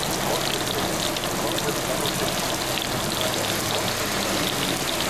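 Heavy rain falling steadily on pavement and standing floodwater, a dense, even hiss.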